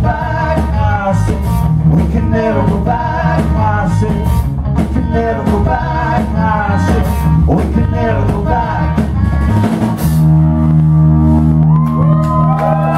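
Live rock band playing: electric guitars, bass, drum kit and a male lead vocal. About ten seconds in the drums drop out and a final chord is held, with gliding notes bending up and down over it near the end as the song finishes.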